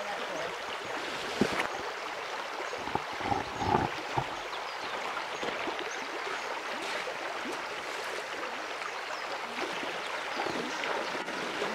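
Small stream running steadily over a shallow gravel riffle, with a few brief, sharper sounds about one and a half and three to four seconds in.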